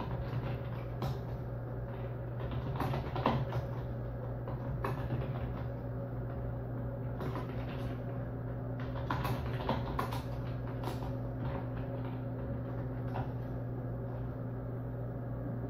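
A steady low hum of room or appliance noise, with scattered faint knocks and clicks throughout.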